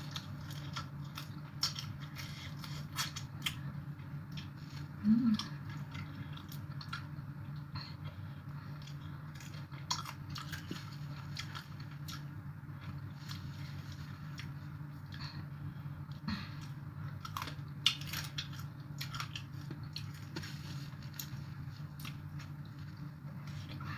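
Close-up chewing and mouth sounds of someone eating papaya salad, with scattered small crunches and clicks over a steady low hum. A short low tone stands out about five seconds in.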